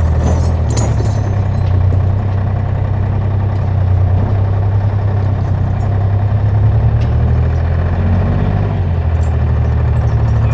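A large engine running steadily at one even, low speed, with no revving.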